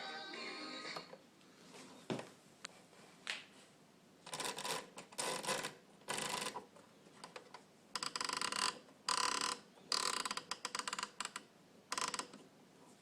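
Panasonic RC-6015 flip clock radio being worked by hand: several bursts of rapid mechanical clicking, each about a second or less, with single clicks before them.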